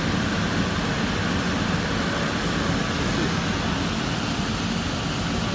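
Electric furnace blower running steadily, a constant rush of fan and moving air, with the unit on its high-heat stage.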